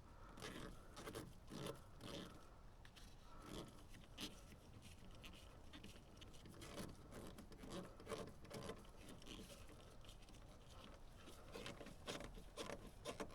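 Faint, scattered small clicks, scrapes and rubbing of tools and parts being handled during hand work on the machine.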